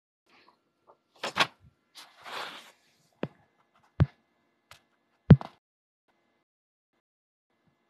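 A few sharp knocks, irregularly spaced, with a brief rustle between the first and second; the loudest knock comes a little past five seconds in.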